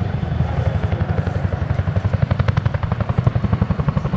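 Boeing CH-47J Chinook tandem-rotor helicopter flying low and close, its rotors beating in a rapid, even rhythm over a steady low rumble. About halfway through, the beat sharpens into a crisp blade slap.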